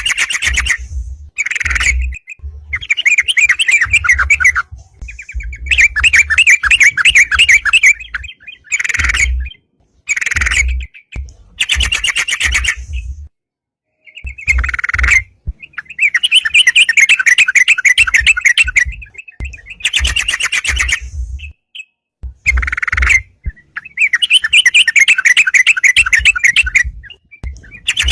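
Yellow-vented bulbul (crucukan) singing loudly and lively, in repeated bubbling, chattering phrases about one to two and a half seconds long, with short pauses between them. This is the 'gacor' challenge song used to lure and provoke rival bulbuls.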